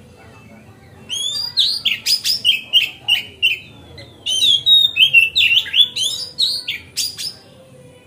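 Oriental magpie-robin singing a loud, rapid song of varied whistles, slurred notes and sharp chips, in two long runs with a short pause just before the middle of the stretch.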